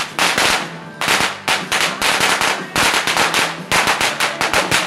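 A string of firecrackers going off: many sharp cracks in quick, irregular succession.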